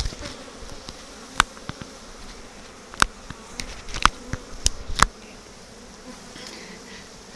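Honey bees buzzing around an opened hive, a steady hum of an agitated colony that is "not very happy" at being opened. A handful of sharp clicks come in the first five seconds.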